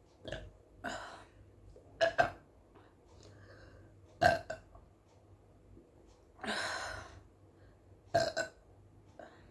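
A woman burping repeatedly after gulping carbonated soda (Pepsi): about six separate burps, mostly short and abrupt, with one longer, airier burp past the middle.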